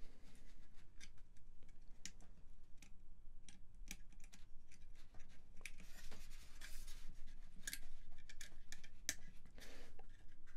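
Handling noise of a Modal Craftsynth kit being put together by hand: scattered small clicks and knocks as a connector block is worked into place to line up its pins, with a stretch of rubbing and scraping about six seconds in.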